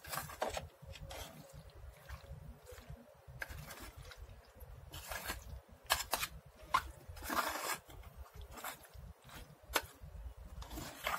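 A vegetable salad in a creamy yogurt and mayonnaise dressing being mixed by hand in a steel bowl: irregular scrapes and wet stirring sounds against the metal.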